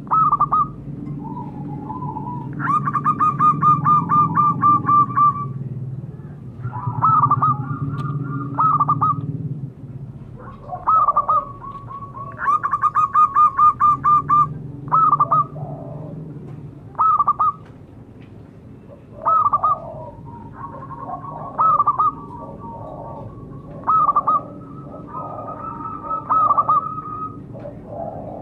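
Zebra dove (perkutut) cooing song: two long runs of rapid staccato notes, one a few seconds in and one about halfway through, with short clipped coos repeated every second or two between them.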